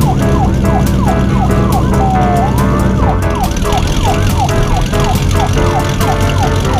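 Cartoon police-car siren sound effect: a quick up-and-down wail repeating two or three times a second, over steady held tones.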